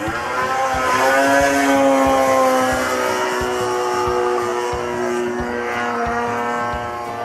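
26cc two-stroke gas engine of an Extra 260 RC aerobatic airplane in flight, running at high throttle. Its pitch climbs during the first second or so, then slowly falls as the plane flies past.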